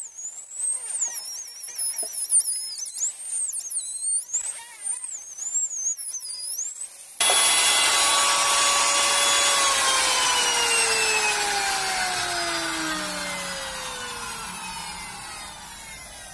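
A power tool motor's whine that cuts in suddenly about seven seconds in, then falls steadily in pitch and fades away as it spins down. Before it there are only faint, wavering high whistling tones.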